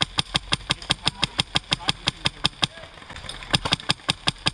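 Airsoft guns firing a rapid, steady stream of sharp shots, about six or seven a second. There is a brief lull about three seconds in, then a louder run of shots.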